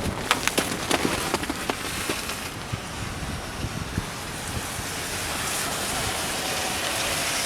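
Strong wind blowing over the microphone, a steady rushing noise, with a few sharp clicks in the first couple of seconds.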